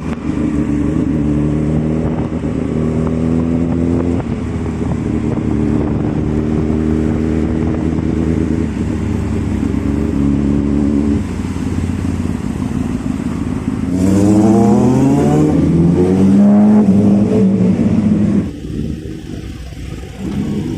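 Loud motorcycle engines running steadily. About fourteen seconds in, one revs up in a few rising sweeps of pitch, then eases off near eighteen seconds.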